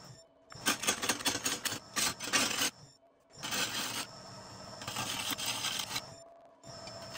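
Wood-turning tool cutting the face of a birch burl block spinning on a lathe: scraping cuts in three bursts with short pauses between, the first a rapid run of strokes.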